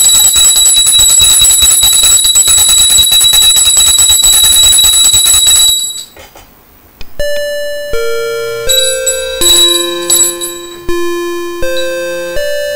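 Consecration bell ringing continuously for about six seconds as the chalice is elevated, then, after a short pause, an electronic chime playing a short melody of single notes at changing pitches.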